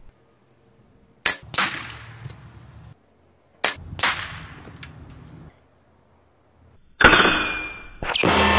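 Two shots from a .25-calibre PCP air rifle, a couple of seconds apart, each a sharp crack followed about a third of a second later by a second, slightly softer crack. Near the end comes another loud sudden sound that fades away, and then music begins.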